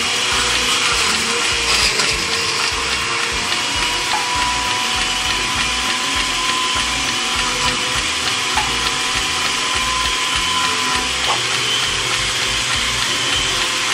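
Countertop blender running steadily at full speed, liquefying chunks of celery, frozen pineapple, ginger and nopal with water into green juice.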